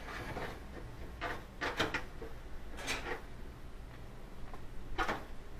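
A few short knocks and scrapes of LG dryer parts being handled and fitted by hand during reassembly, with a low steady hum underneath.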